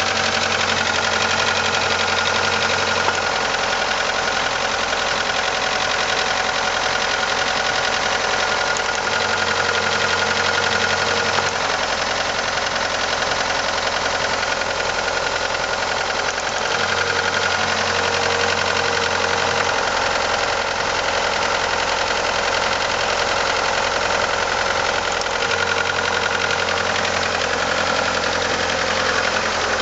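1989 Ford Probe GT's turbocharged 2.2-litre four-cylinder (F2T) engine running steadily with a knocking sound, an unexplained fault the owner wants diagnosed.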